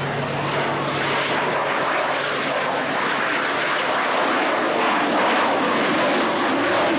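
Jet noise of a Panavia Tornado's twin RB199 turbofans as it flies past slowly with its undercarriage down: a steady rushing roar that grows a little louder in the second half.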